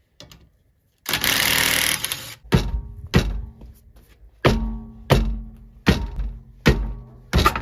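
A cordless impact wrench briefly hammers at the lug bolts of a BMW E46 Compact's rear wheel. Then come seven heavy thuds as the tyre is kicked again and again to break the wheel free of the hub.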